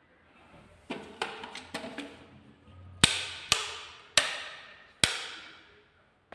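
A run of sharp knocks: a few lighter ones in the first two seconds, then four loud bangs about half a second to a second apart, each ringing out in the echo of a bare, empty room.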